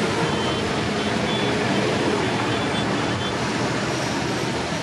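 A convoy of farm tractors and a pickup truck passing on a road: steady diesel engine noise mixed with tyre noise on tarmac.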